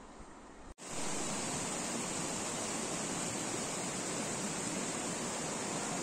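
Faint background that drops out briefly under a second in, then a forest creek's water rushing steadily and evenly, louder.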